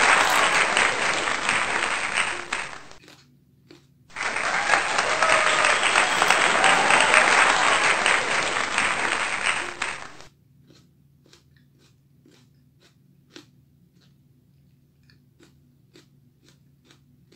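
Applause sound effect, which drops out briefly about three seconds in and cuts off sharply about ten seconds in. After it come soft crunches, about two a second, as a raw green chili is chewed.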